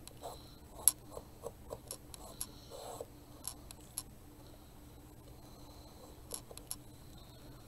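Light, scattered taps and clicks of small wooden craft pieces being handled and pressed together on a cutting mat, mostly in the first four seconds, with two or three more a little after six seconds.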